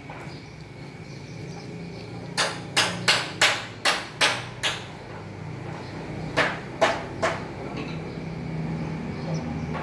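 Sharp knocks in two runs: about seven quick blows at roughly three a second a couple of seconds in, then three more a second and a half later, over a steady low hum.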